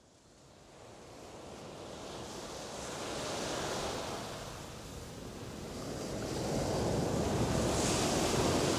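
Sea surf washing, fading in from silence, swelling about three seconds in, easing off, then building again near the end.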